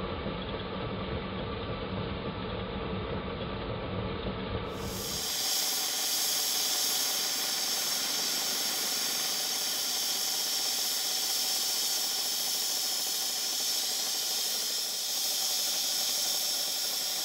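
Safety valve of a coal-fired 5-inch gauge GWR 14XX live-steam locomotive blowing off, a steady loud hiss of steam that sets in about five seconds in: the boiler is at its full working pressure of about 100 psi and venting the excess. Before that there is a duller, lower sound of the engine running, slowed down.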